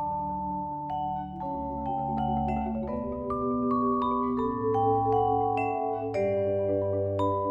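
A Yamaha marimba and a vibraphone played together with mallets: separate struck notes, each ringing on, layered over low sustained tones.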